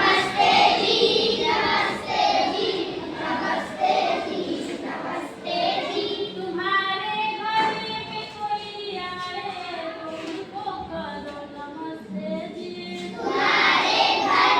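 A group of children singing together, with notes held steadily in the middle stretch.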